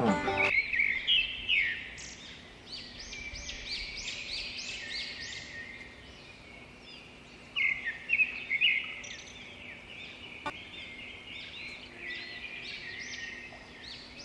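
Birds chirping: many short, high calls in quick runs, over a faint steady hum.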